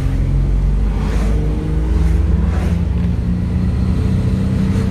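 Holden VP Commodore's engine running under steady load as the car drives along, with road and wind noise.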